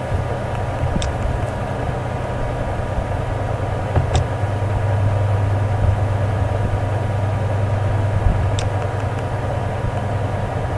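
Steady low electrical hum with a constant hiss and faint steady tones. Three short sharp clicks, about a second, four seconds and eight and a half seconds in, fit mouse clicks.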